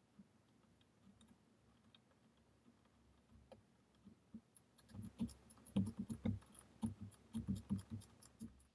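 Ratcheting screwdriver clicking as a small Phillips screw is driven into the boat's fiberglass console. A few faint ticks come at first, then a quick run of sharp clicks and knocks, about five a second, over the last four seconds.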